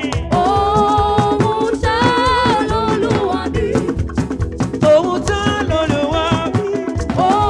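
Live Yoruba gospel praise music with drums and percussion, overlaid by long held sung notes.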